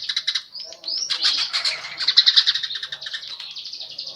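A manyar weaver singing a fast, chattering song of rapid trills and quick rising chirps, mixed with the chirping of the Eurasian tree sparrow that it has learned to imitate.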